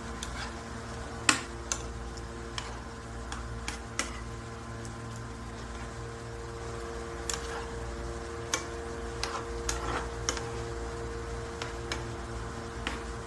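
A metal spoon clicking and tapping irregularly against a nonstick frying pan while stirring a simmering tomato sauce with eggs in it. A steady low hum runs underneath.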